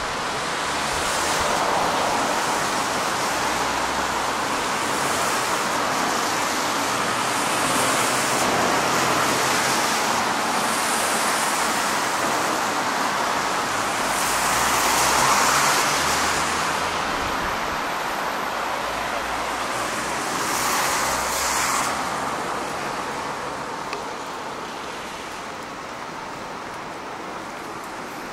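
City street traffic: cars passing with a continuous tyre and engine hiss that swells as each one goes by, loudest about halfway through and again a little later, then easing off near the end.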